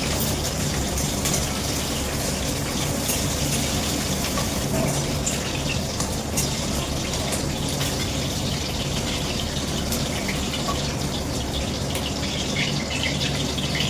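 Steady rush of running water, starting and stopping abruptly.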